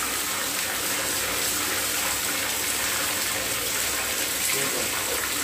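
Tap water pouring steadily from a wall faucet and splashing onto fish piled in a plastic basin as they are rinsed.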